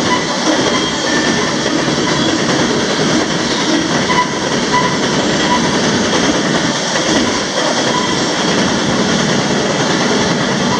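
Loud, steady rumble and rattle of a moving freight train, heard from on board an open freight car: steel wheels rolling over the rails and the car's ironwork rattling.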